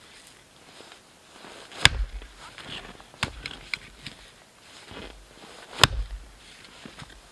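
Hatchet splitting wood on a stump chopping block: two sharp, loud strikes about four seconds apart, with lighter knocks and handling between them as the piece is set up.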